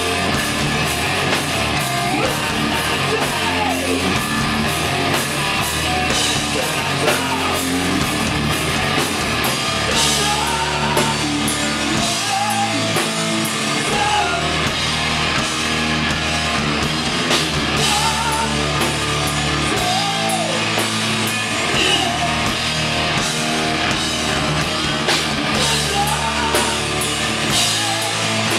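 Live rock band playing loud and steady, with electric guitar, drum kit and a singing voice.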